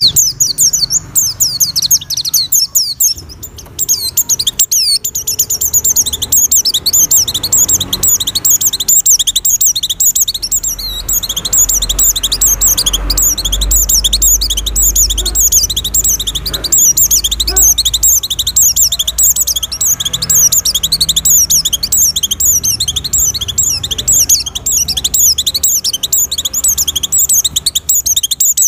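White-eye (pleci) in breeding condition singing a fast, unbroken stream of high-pitched chirps and trills, the excited song used as a lure to draw other white-eyes.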